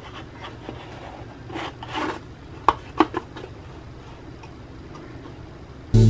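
Huion drawing tablet being handled in its packaging: soft rubbing of the tablet against the box about a second and a half in, then three light clicks about a third of a second apart. Music starts near the end.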